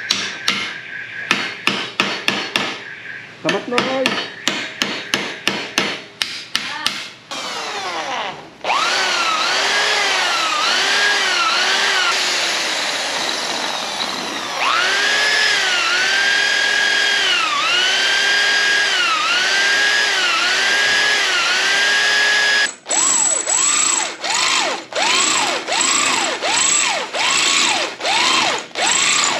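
Rapid hammer taps, three or four a second, for the first several seconds. Then a power tool runs with a whine whose pitch dips and recovers about once a second, as if being pressed into the work. Near the end it is pulsed in short bursts, roughly two a second, each falling in pitch.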